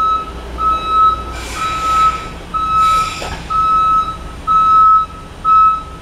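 Electronic beeping: a single steady tone repeating about once a second, with two short bursts of hiss partway through.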